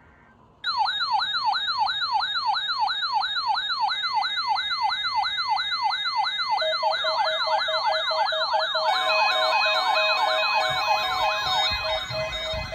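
Weather radio receivers going off in alarm for the NOAA Weather Radio weekly test. A siren-like warbling tone starts suddenly and sweeps up and down about four times a second. About six and a half seconds in a beeping alarm tone joins, and a few seconds later more alarm tones layer on, including a steady high tone.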